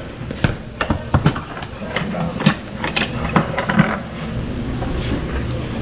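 Black earthenware pots (ttukbaegi) and dishes clattering as they are set down on the table, a scattered string of sharp clinks and knocks.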